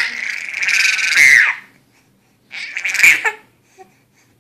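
A four-month-old baby squealing with laughter: one long, high shriek, then a shorter one about two and a half seconds in.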